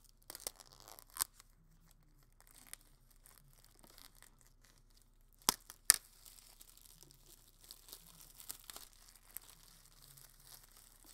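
Clear plastic shrink wrap being torn and peeled off an iPad Air box. There are a few sharp rips near the start and two more about halfway through, then a long run of fine crinkling as the film comes away.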